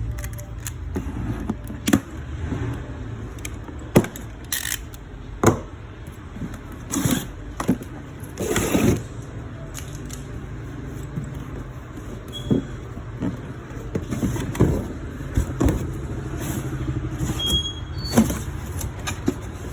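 Packaging and metal coil springs being handled during an unboxing: scattered knocks, clinks and rustles over a steady low rumble.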